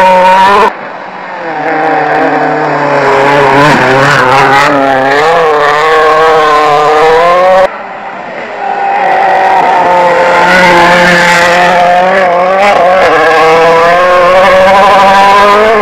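Rally car engines revving hard, the pitch climbing and dropping with throttle and gear changes as each car comes toward the microphone. The sound cuts abruptly about a second in and again about halfway through as one car's run gives way to another.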